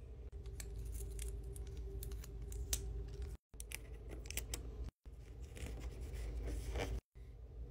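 Clear sticky tape pulled off a plastic desk dispenser and torn on its cutter, a run of crackling clicks, followed by fingers folding the tape and pressing it onto paper. The sound cuts off abruptly a few times, over a low steady hum.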